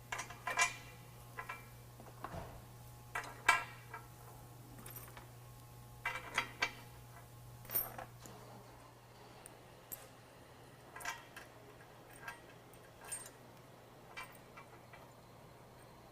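Scattered metal clinks and taps of steel bolts, nuts and bracket parts being handled and fitted as a bumper winch tray is bolted to its frame brackets. Several sharper, briefly ringing clinks come in the first half, then lighter ticks.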